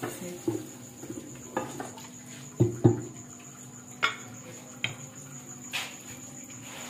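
A wooden spatula knocks and scrapes against an aluminium pressure-cooker pot while the masala is stirred. The sharp clacks come at scattered moments, and the loudest two fall close together about two and a half seconds in.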